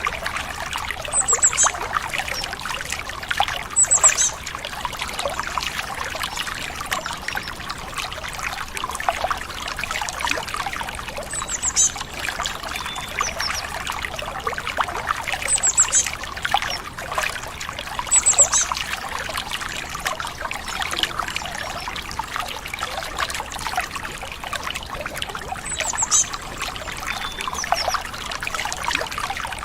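A stream trickling and splashing steadily, with small birds giving short clusters of high chirps every few seconds.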